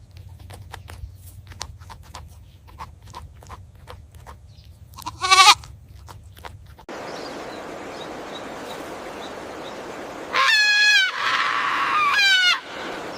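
Goats bleating: one short, wavering bleat about five seconds in over a scatter of light clicks, then two louder bleats near the end, with a rustling noise between them.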